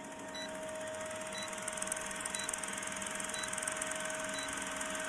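Old-film countdown-leader sound effect: a film projector's fast, steady clatter and hiss over a faint hum, with a short high beep once a second.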